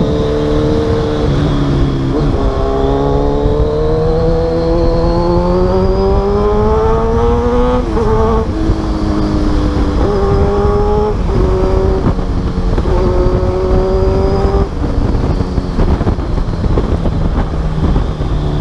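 Kawasaki Z1000's inline-four engine with an aftermarket full exhaust system, heard while riding. It pulls up through the revs for about five seconds, then drops sharply at a gear change about eight seconds in. A few shorter pulls and shifts follow, over a steady rush of noise.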